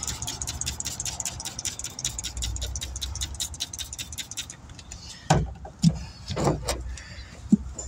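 A motor running with a rapid, even ticking about six times a second that stops about four and a half seconds in. Then come a few separate knocks and clanks.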